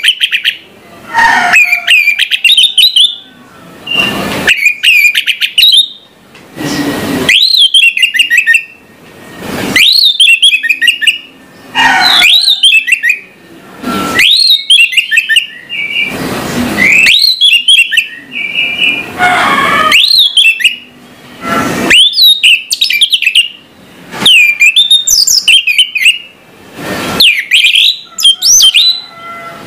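Orange-headed thrush singing: loud, varied phrases of rising and falling whistled notes, one every two to three seconds with short pauses between. Short bursts of hiss fall between the phrases.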